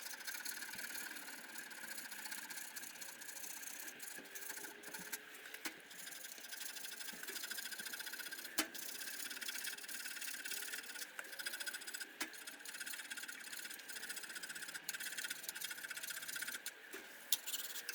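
Faint, steady metal-on-metal rasping as the mini lathe's carriage ways are worked by hand, with a few sharp clicks about six, nine and twelve seconds in.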